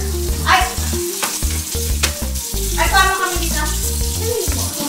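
Background music: an upbeat track with a bass line that steps from note to note.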